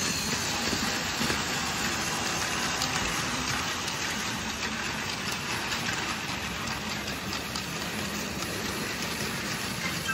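Battery-powered Tomy Plarail toy train running on plastic track: a steady motor whir with faint clicks from the wheels and track.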